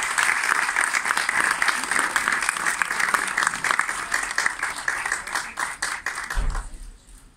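Large audience applauding, many hands clapping together; the clapping dies away near the end.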